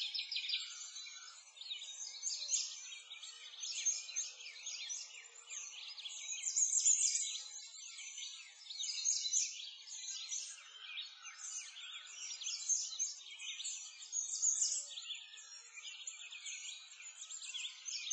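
A dense chorus of many birds chirping and twittering, the quick calls overlapping in swells of louder and softer.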